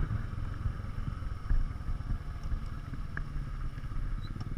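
A 150 cc motorcycle's engine running steadily while riding, heard from on the bike, with light wind noise.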